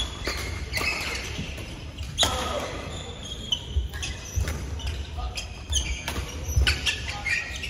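Indoor badminton doubles play in a large, echoing hall: sharp racket strikes on the shuttlecock at irregular intervals and short squeaks of court shoes on the mat, with voices from nearby courts.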